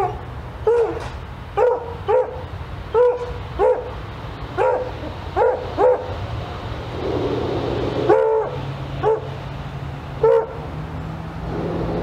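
A dog barking repeatedly: about a dozen short barks, half a second to a second apart, with a pause near the middle. A steady low hum runs underneath.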